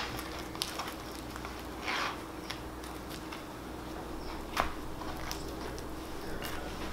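Quiet handling of a toasted sandwich on a wooden cutting board: soft rustles of crisp bread and a light click a little past the middle, over a faint steady hum.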